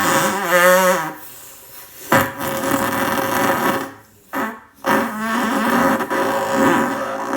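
A long human fart in several stretches: a wobbling, pitched blast, a short lull, then two long buzzing stretches split by a brief gap about four seconds in.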